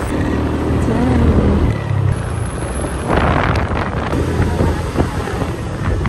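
Steady road noise from a moving vehicle: engine and tyre rumble, with wind buffeting the microphone.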